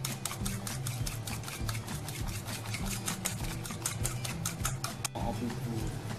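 A metal spoon beating raw egg in a stainless steel bowl, clinking rapidly against the metal at about eight strikes a second. The egg is being whisked until it foams.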